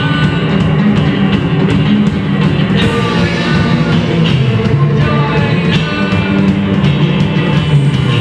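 Live rock band playing: a bowed violin melody over electric guitar, bass, drums and keyboard.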